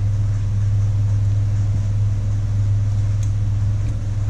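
A steady low hum at one pitch, with a faint click about three seconds in.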